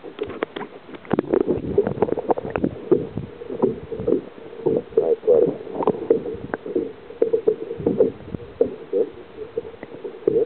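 Water sloshing and gurgling around a camera held just under the sea surface, with many irregular knocks.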